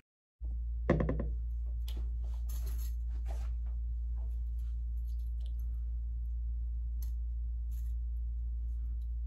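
Steady low hum of room tone, with faint scattered clicks and rustles from hands working at hair. A brief hummed vocal sound comes about a second in.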